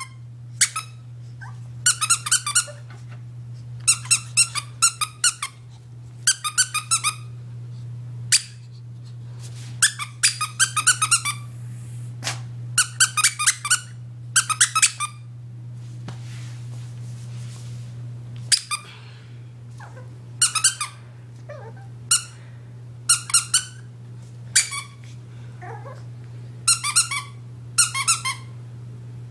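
Squeaky dog toy squeaking in repeated short bursts, each a quick run of several high squeaks, every second or two.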